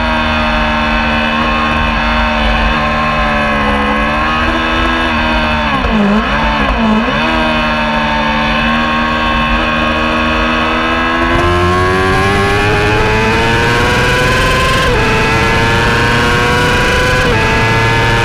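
Racing motorcycle engine heard from the bike itself, held at a steady pitch through a corner with a brief wavering about six seconds in. From about eleven seconds it accelerates hard, pitch climbing, with two upshifts near the end.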